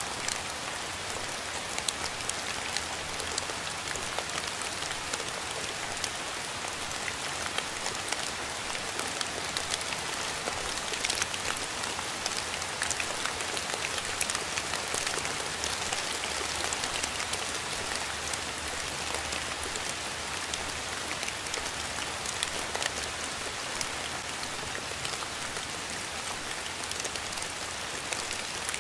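Steady rain falling on a surface: a dense, even hiss of rainfall with many separate drops pattering sharply through it.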